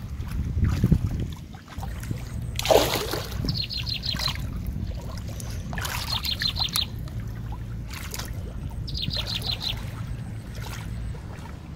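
Shallow water splashing and sloshing as hands grope about in it, in several bursts. A bird calls a short, rapid trill of high notes three times, with a low steady hum underneath.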